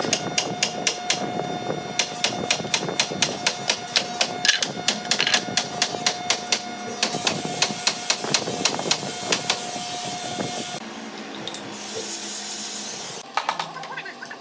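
Rapid, sharp knocking of hammer strikes on wood, several a second, with pauses in between. A steady faint tone runs under the strikes and stops about three-quarters of the way through.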